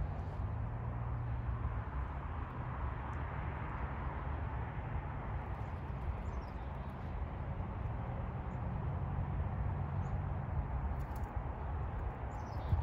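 Steady outdoor rumble and hiss with a few faint, high, short bird chirps, about six seconds in and again near the end.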